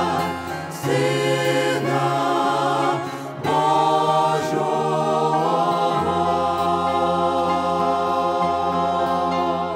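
Mixed male and female vocal ensemble singing a Ukrainian Christmas song in harmony, holding long notes on the words "Сина Божого" over a steady low instrumental accompaniment.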